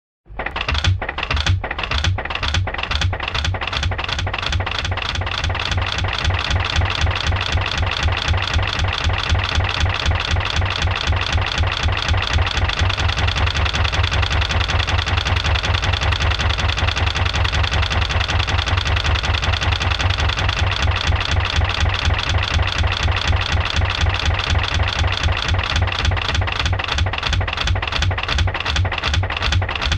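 An engine starts and then runs steadily with a fast, even knocking beat; the beats come slower in the first couple of seconds before settling.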